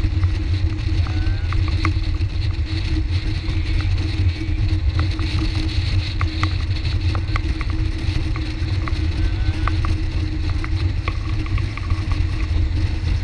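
Motorboat engine running at speed, a steady drone with a constant low rumble, under the rushing hiss of water and wind. Short clicks are scattered throughout.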